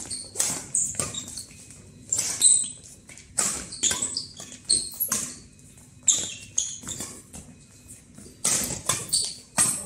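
Badminton rally: rackets striking the shuttlecock, roughly once a second, mixed with the short high squeaks of players' shoes on the court.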